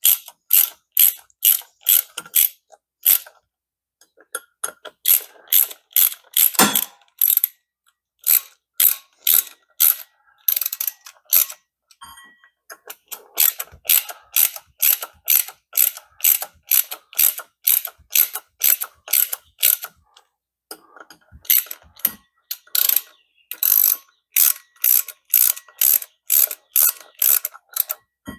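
Ratchet wrench clicking in quick repeated strokes, about three clicks a second, with a few short pauses, as bolts are driven in to push the ATV clutch's back plate in against its spring and open it up for the drive belt.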